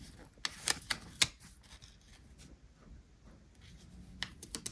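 Paper stickers being handled and pressed onto a planner page: light crinkles and sharp little clicks, the sharpest about a second in, with a few more near the end.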